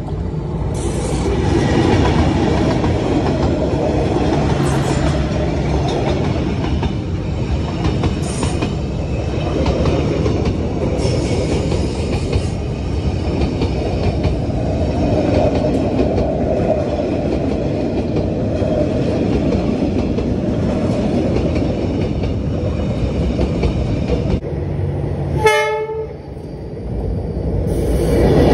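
Diesel-hauled passenger train passing close by over a railway bridge: a steady, loud rumble of wheels and carriages on the rails. About 25 seconds in there is a brief sharp tonal blip.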